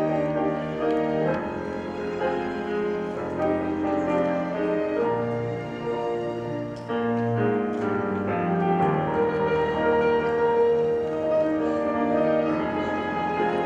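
Grand piano playing a classical piece, with a symphony orchestra's bowed strings accompanying.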